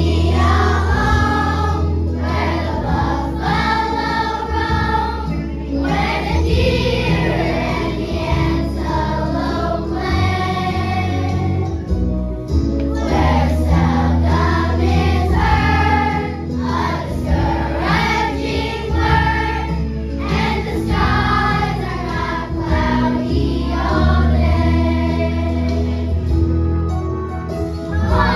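A choir of children singing in unison over instrumental accompaniment with a steady bass line.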